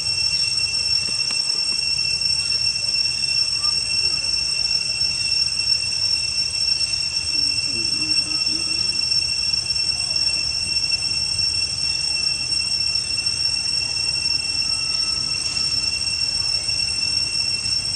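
Insect chorus: a steady, unbroken high-pitched drone of several even tones, over a low steady rumble.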